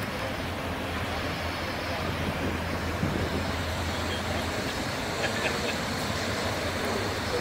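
Low, steady diesel drone of a tugboat passing on the river, over a general hum of city traffic.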